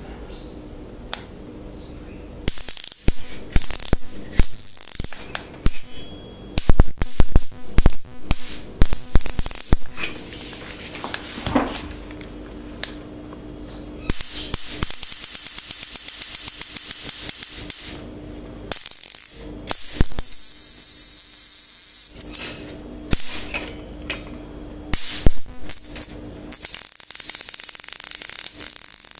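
Sparks snapping between the charged wire grid of an electric fly-swatter racket and a metal candle stand: irregular sharp cracks. Partway through comes a fast, even run of snaps, then a few seconds of hissing arc.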